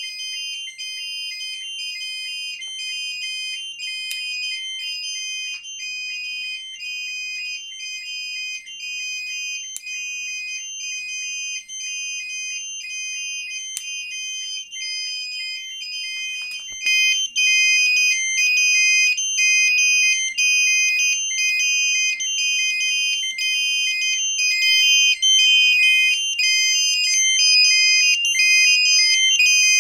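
Home fire alarm system in alarm after its smoke detectors have been triggered: electronic beepers pulsing rapidly in several overlapping high pitches. The beeping gets louder about 17 seconds in, as more tones join.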